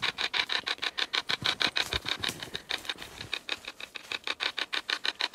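Hack shack spirit box, a hacked portable radio, sweeping the band: an even chopping of radio static and fragments, about nine chops a second.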